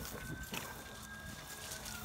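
A faint siren wailing, one slow rise and fall, with a few light rustles.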